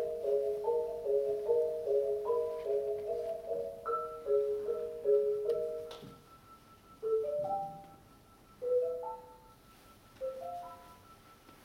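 Yamaha concert marimba played solo with mallets: a fast, rippling pattern of repeated mid-register notes that thins out about six seconds in to single notes separated by pauses, each ringing briefly.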